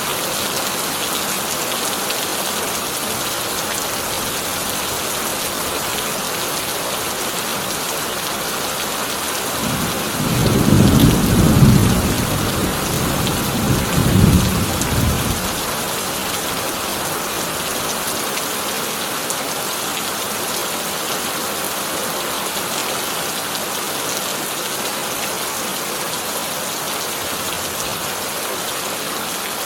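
Heavy rain drumming steadily on a corrugated tin roof. A rumble of thunder swells about a third of the way in, peaks twice over about five seconds, then fades back into the rain.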